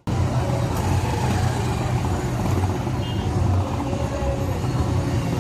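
Motor vehicle engine running with a steady low rumble amid road traffic noise.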